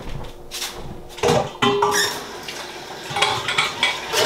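A metal mixing bowl and dishes clattering as they are handled and set down at a kitchen sink: a few sharp knocks, some with a short metallic ring.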